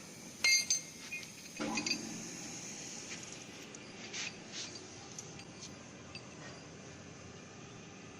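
Hard objects clinking together. There are two sharp ringing clinks about half a second in, a cluster of clanks with a lower body around two seconds, then scattered faint ticks over a steady hiss.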